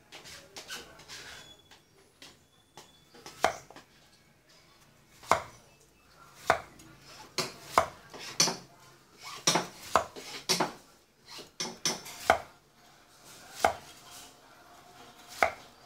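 A cleaver slicing a peeled bottle gourd into rounds, each cut ending in a knock on a wooden chopping board. After about three seconds come about a dozen sharp, irregular chops, roughly one a second.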